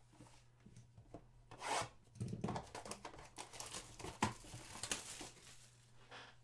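Trading cards and a cardboard card box being handled by hand: a run of rustling and sliding with small taps, loudest about two seconds in.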